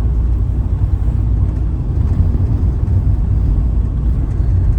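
Steady low rumble of a van driving along the road, engine and road noise mixed with wind noise in very strong wind.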